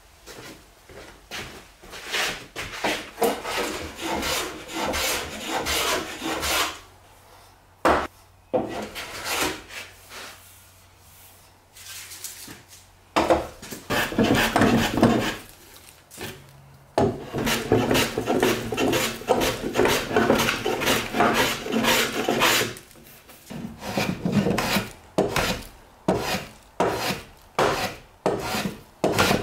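Metal hand plane taking shavings off a wooden board in repeated push strokes. There is a pause of a few seconds in the middle, then longer strokes, and near the end short quick strokes at a little over one a second.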